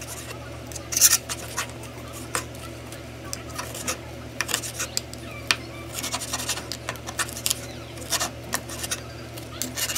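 Chef's knife chopping roast pork on a wooden cutting board: irregular sharp knocks and crunches of the blade through the meat and skin onto the board, the loudest about a second in. A steady low hum runs underneath.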